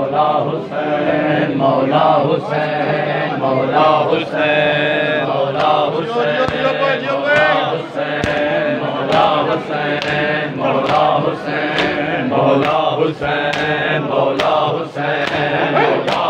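A group of men chanting a noha, a Muharram lament, in unison over a steady beat of sharp slaps from matam, hands striking chests in time with the chant.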